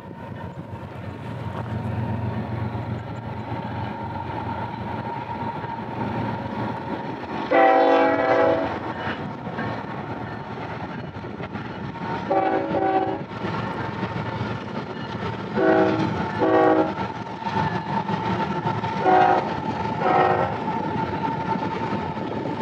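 Union Pacific freight train's diesel locomotives rumbling steadily while the lead locomotive sounds its air horn six times: one long blast about seven seconds in, then shorter blasts, two of them close together in a pair.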